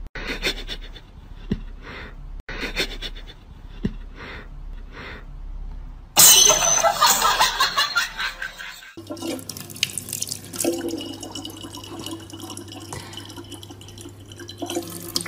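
A soft regular tick about twice a second, then a sudden loud hissy burst lasting about three seconds. After that a tap runs a thin stream of water into a plastic bottle, over a steady low hum.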